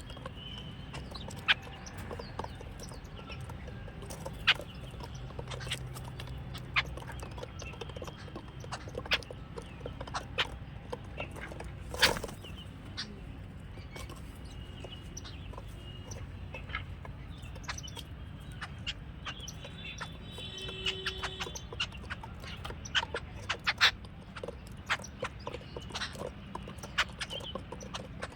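Jungle babblers calling with short, scattered notes, among many sharp clicks and rustles, over a low steady background rumble.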